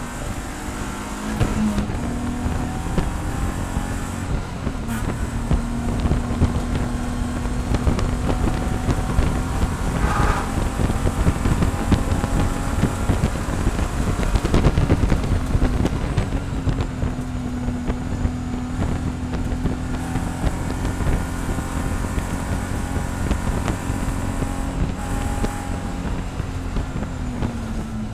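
BMW SpecE46 race car's inline-six engine running hard at speed, heard from inside the stripped cockpit with heavy wind and road noise. The engine note drops near the end as the car slows for a corner.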